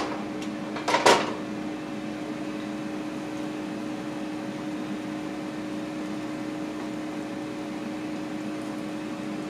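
Steady hum of a Ninja air fryer's fan running, with one brief louder sound about a second in.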